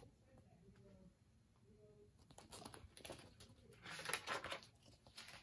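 Faint rustling and crinkling of a picture book's paper pages being handled and turned, loudest about four seconds in; otherwise near silence.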